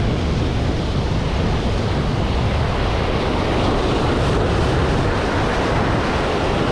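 Surf breaking and washing over the rocks of the shoreline, with wind buffeting the microphone: a steady rushing noise heavy in the low end.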